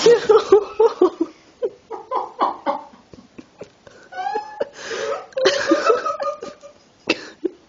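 People laughing in repeated bursts, loudest in the first second and again about five to six seconds in.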